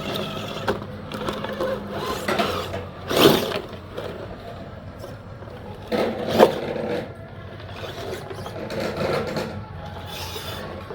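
Radio-controlled rock crawler truck's electric motor and geared drivetrain whirring in uneven bursts as it tries to climb wet rock, with two louder bursts about three and six seconds in.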